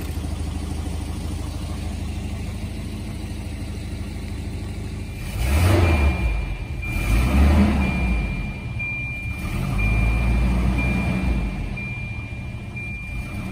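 Volvo 240 engine revved a few times from idle to about 3,000 rpm and settling back to idle, with its leaking exhaust audible. A thin, high, steady beeping tone starts about six seconds in and keeps going.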